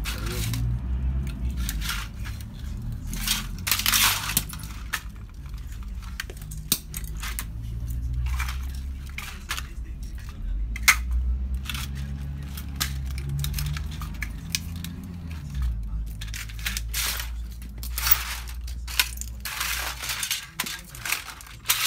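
Plastic CD jewel cases, discs and other brittle plastic media cracking and crunching under stomping cowboy boots on a hard tiled floor: irregular sharp cracks, snaps and scrapes, coming thicker near the end.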